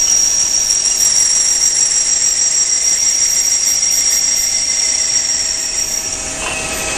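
Bardons & Oliver automatic tube cut-off lathe machining a 4-inch stainless steel tube with a thick 0.350-inch wall: steady machine noise with a high-pitched whine that stops about six seconds in.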